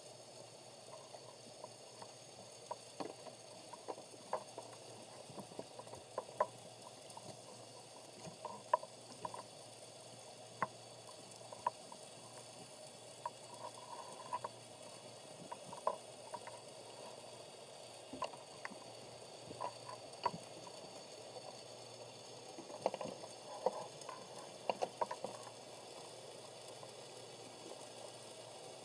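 Underwater ambience picked up by a camera in a sealed underwater housing: a steady faint hiss with scattered sharp clicks and ticks at irregular intervals, bunching more thickly near the end.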